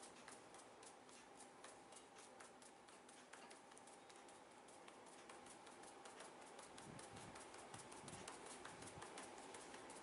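Faint, quick tapping and rubbing of fingertips on a man's scalp and hair during a head massage, heard as a dense run of light clicks.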